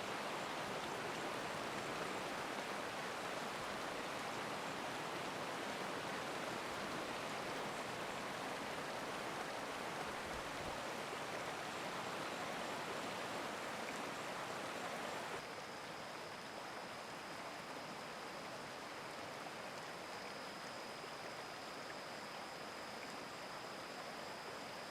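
Steady rushing of a flowing stream. About fifteen seconds in it abruptly turns a little quieter, and a thin, steady high-pitched tone sounds over the water.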